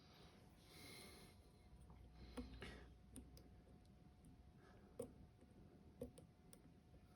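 Faint clicking and light scraping of a dimple pick working the pin stack of a Dom IX 5kg dimple lock, with a few sharper single clicks. The lock's pins are worn, so the feedback is muted.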